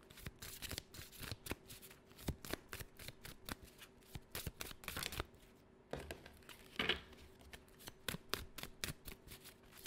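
A deck of cards being shuffled and handled: a run of quick, irregular clicks and riffles, with a short pause a little past halfway.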